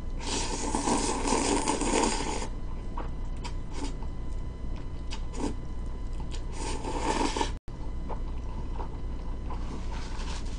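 Jjolmyeon noodles being slurped in a long slurp at the start and a shorter one about seven seconds in, with small wet clicks of chewing between.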